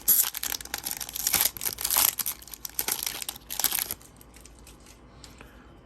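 Foil wrapper of a Pokémon trading card booster pack being torn open and crinkled for about four seconds, then it goes much quieter with a few faint ticks.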